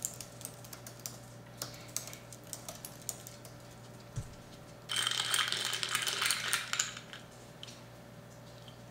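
Typing on a slim Apple keyboard: scattered light key clicks, with a louder, denser stretch of continuous clatter about five seconds in that lasts about two seconds. A faint steady low hum sits underneath.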